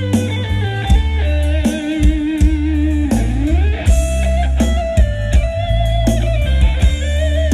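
Live band music played loud through a large PA system: a lead electric guitar holding wavering notes, sliding down and back up in pitch about three seconds in, over heavy bass and drum hits.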